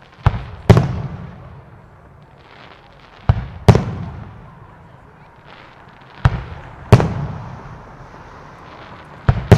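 Aerial firework shells bursting in steady succession: four pairs of sharp bangs about three seconds apart. The second bang of each pair is the louder one, followed by a rolling rumble.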